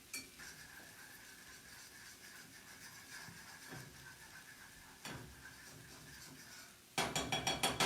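Food cooking on the stovetop with a faint steady sizzle, then near the end about a second of rapid rattling clicks from kitchen utensils or cookware.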